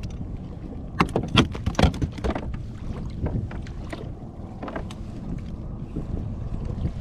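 Wind buffeting the microphone out on the water, with a short run of knocks and clatter between about one and two and a half seconds in, and a few lighter knocks later.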